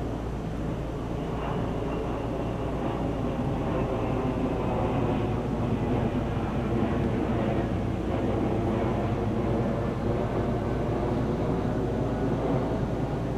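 A vehicle engine running steadily, a little louder after the first few seconds.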